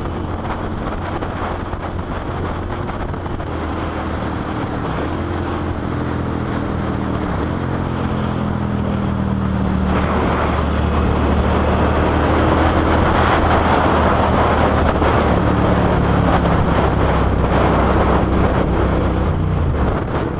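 Suzuki SV650 V-twin engine running under way, its note shifting in steps several times. Wind noise on the microphone grows louder from about halfway through.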